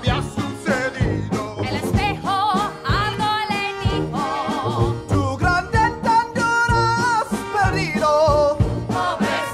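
A song: a singing voice with vibrato over instrumental backing with a steady beat.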